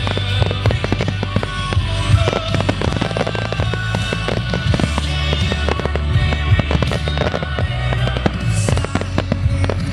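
Fireworks display with many shells bursting in rapid succession, a dense run of bangs and crackles, while music plays alongside.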